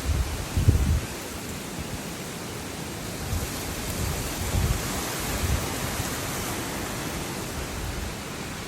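Hurricane wind and rain: a steady rushing noise, with short low buffeting bursts about a second in and a few more later on.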